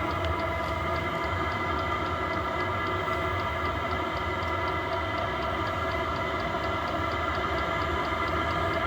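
Diesel heater running steadily after a successful start: the combustion fan and burner give a steady whine over a low hum, with the fuel pump ticking several times a second.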